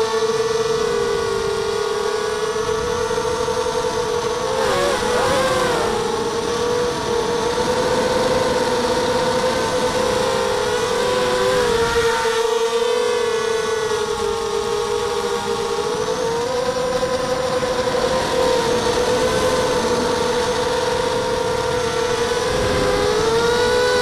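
Brushless motors and propellers of a ZMR250 racing quadcopter, heard up close from its onboard camera: a steady buzzing whine whose pitch wavers and briefly splits into two tones several times as the throttle and attitude change in flight.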